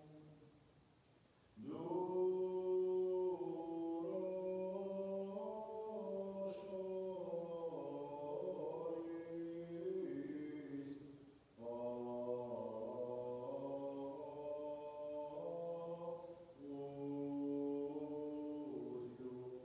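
Armenian Church liturgical chant sung in long, held phrases. It begins about a second and a half in, with a short break for breath about eleven seconds in.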